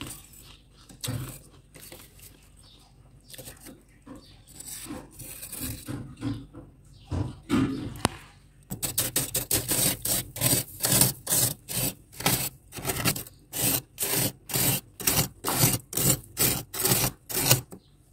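Metal spoon scraping soft, flaky frost from inside a freezer. Scattered scrapes and scoops at first, then from about nine seconds in a fast, even run of strokes, about three a second.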